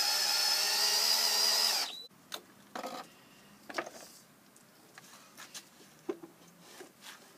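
Cordless drill driving a long screw into wood, running steadily for about two seconds and then stopping abruptly. After that come a few light knocks and clatters.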